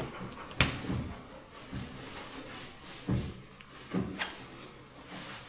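Half a dozen irregular knocks and thumps, the loudest about half a second in, like objects being put down or handled.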